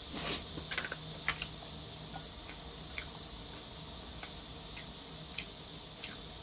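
Scattered light clicks of wooden chopsticks against a porcelain bowl as food is picked up, over a steady faint hiss. The clicks come closest together in the first second and a half, then thin out to about one a second.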